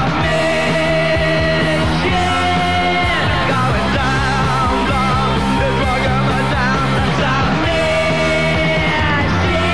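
Punk rock song with a loud lead vocal over the band, playing steadily.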